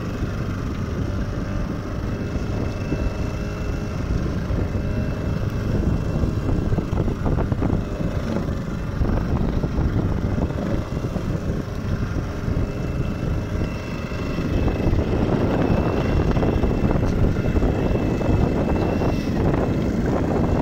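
Motor fishing boat running steadily under way, its engine noise mixed with water rushing along the hull and wind on the microphone; the noise grows louder about two-thirds of the way through.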